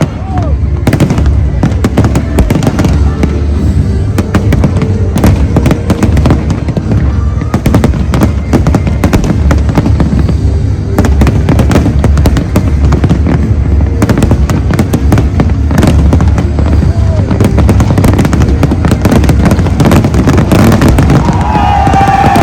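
Fireworks display going off continuously: dense crackling and banging over deep, rolling booms, with music playing underneath.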